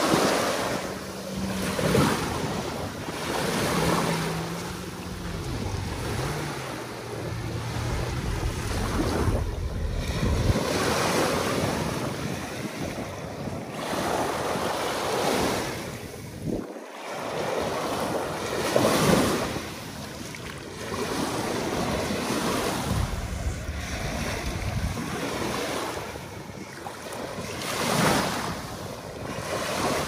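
Sea surf breaking and washing on the shore, swelling and fading every few seconds, with wind buffeting the microphone.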